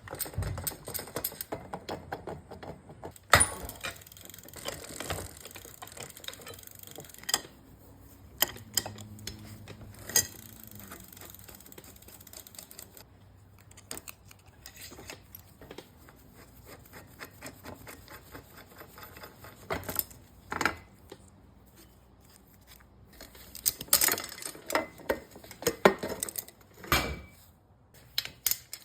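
Irregular metallic clicks, taps and clinks of hand tools and bike parts while the bearings of a one-piece bicycle crank are being worked on, a few louder knocks among them.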